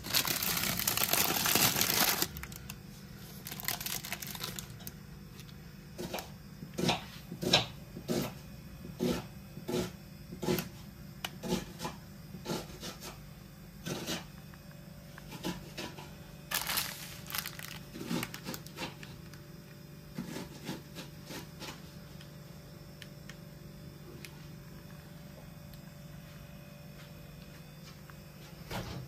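Plastic packaging crinkling and rustling. It starts with a loud stretch of about two seconds, then comes as a run of short rustles and clicks over the next twenty seconds or so, with a low steady hum underneath.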